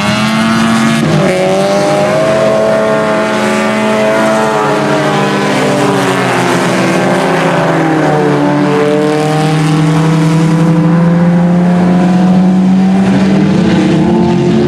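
A pack of IMCA Sport Compact race cars running at speed, several four-cylinder engines overlapping as their pitch rises and falls.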